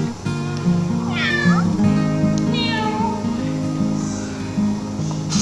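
A kitten meowing twice over light background music: a clear, bending meow about a second in and a softer, shorter one around three seconds in.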